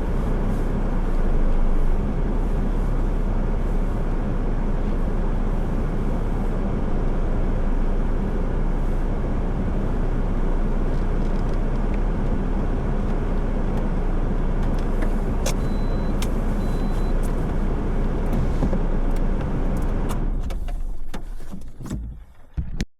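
A car driving, with steady engine and road noise that dies away over the last two seconds or so. Two faint short beeps come about two-thirds of the way through.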